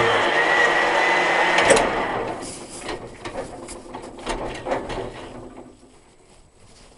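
Machinery inside a Saladin armoured car running with a steady high whine over a low hum, cutting off with a sharp click nearly two seconds in. A scatter of light clicks and knocks of metal parts being handled follows.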